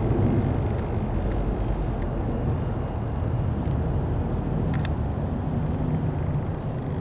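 Boeing 737-800 jet's two CFM56-7B turbofan engines, a steady low rumble as the airliner passes over in its climb.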